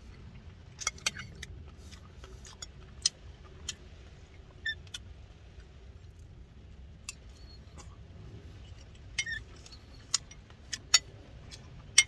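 Metal spoon clinking and scraping against a food container while eating: about a dozen sharp, irregular clinks, the loudest about a second in and near the end, over a low steady hum.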